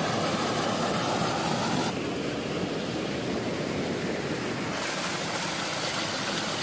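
Water rushing and splashing through gaps in an old concrete dam, a steady churning rush. The hiss of it thins about two seconds in and comes back just before five seconds.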